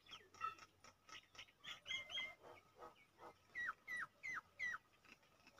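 Faint bird calls: scattered short high chirps, then near the end a run of four quick falling notes, about three a second.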